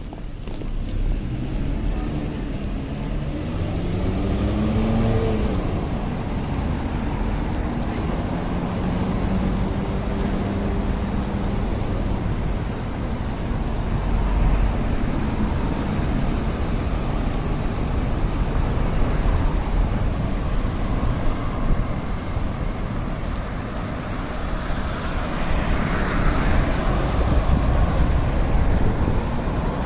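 City street traffic: a vehicle's engine rises in pitch as it pulls away a few seconds in, then a steady hum and the noise of cars passing, growing louder near the end.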